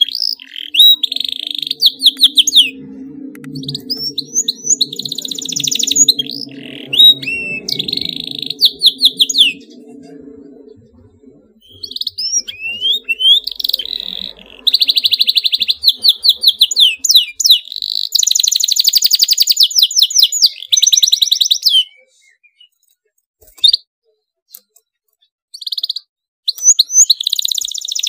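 Domestic canary singing in bursts of fast, tightly packed trills (rolls) mixed with chirps and whistled notes. It twice falls silent for a few seconds between phrases.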